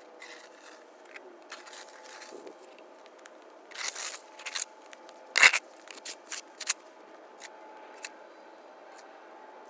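Plastic snow shovel scraping snow along an asphalt driveway in a series of short pushes, with a sharp knock about five and a half seconds in and lighter clicks after it.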